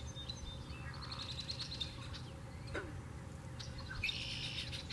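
Wind buffeting the microphone, a steady low rumble, with wild birds chirping and calling over it: a quick run of high chirps about a second in, a falling note near three seconds and a brief burst of chirping near the end.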